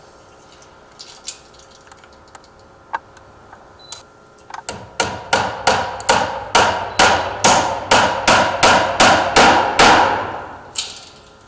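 A small nail being hammered through the loop of a security door's chain: a quick, even run of hammer blows, about four a second, starting about halfway in and lasting some five seconds.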